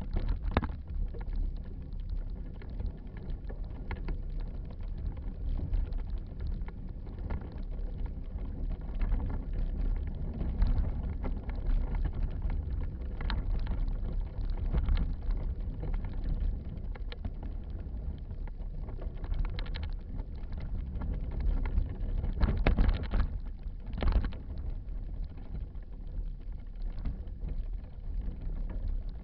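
Low rumble and rattle of a bicycle-mounted camera jolting as the bike rolls over a dirt trail, with wind on the microphone and a few sharp knocks from bumps.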